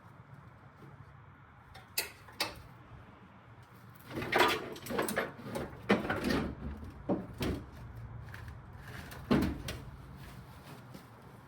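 Knocks and clatter from handling parts on the truck's body: two sharp clicks a couple of seconds in, a run of scraping knocks through the middle, and one more knock near the end.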